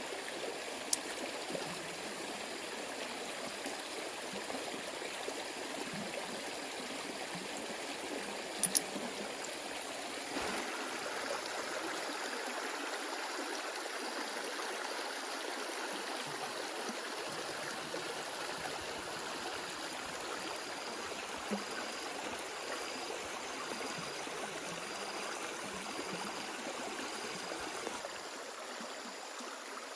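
A stream running steadily, with a few short sharp clicks, a double one about nine seconds in.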